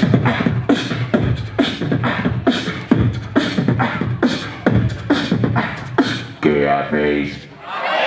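Live beatboxing: a steady beat of mouth-made kick drum and snare sounds, with a held, low pitched vocal note near the end before the beat breaks off.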